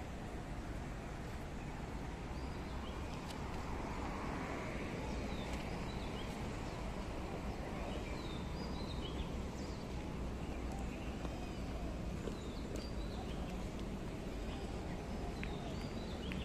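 Small birds chirping in short, scattered calls over a steady background noise.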